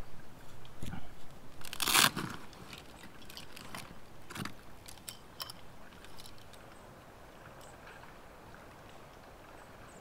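Crunching and clicking handling noises, close to the microphone, with one louder crunch about two seconds in; the noises thin out to a faint steady background after about six seconds.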